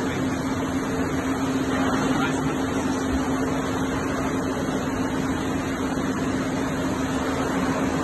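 Floodwater rushing across a factory floor, with a steady machine hum running underneath.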